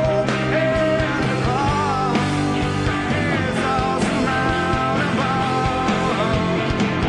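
Live rock band playing an instrumental passage, a lead electric guitar bending and sustaining notes over bass and drums.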